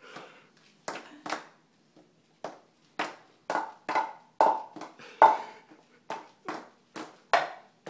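A toddler's footsteps in loose, oversized shoes, the soles slapping and clacking on a tile floor in uneven steps about two a second, a few of them louder.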